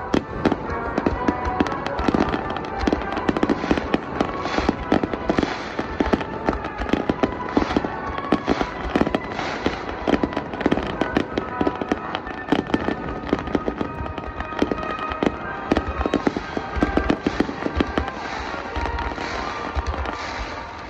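A fireworks display going off in a rapid, unbroken barrage of bangs and crackles, with music playing underneath.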